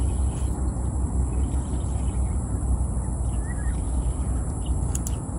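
Steady low rumble of wind buffeting the microphone, with a few faint bird chirps.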